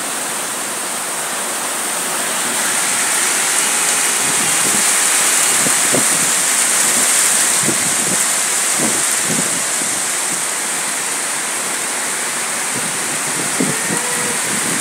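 Heavy rain pouring down in a steady rushing hiss, swelling a little a few seconds in.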